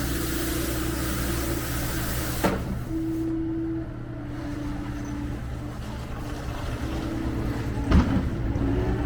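John Deere 325G skid steer's diesel engine running steadily, with a whine that shifts pitch a few times. A sharp knock comes about two and a half seconds in and a louder one near the end.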